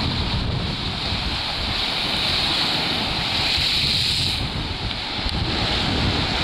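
Stormy sea surf breaking and washing on the beach, with wind buffeting the microphone as a heavy low rumble. The hiss of the surf drops off about four and a half seconds in.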